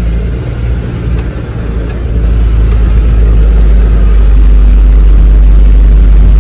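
Heavy diesel truck engine pulling up a steep hill in low gear, heard from inside the cab as a deep, steady rumble. It grows louder about two seconds in and then holds.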